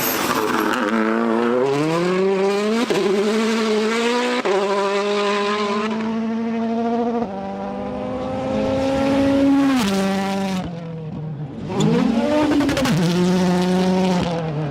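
Race car engine accelerating through the gears: the note climbs and drops back at each shift, falls away about ten seconds in, then revs up again near the end.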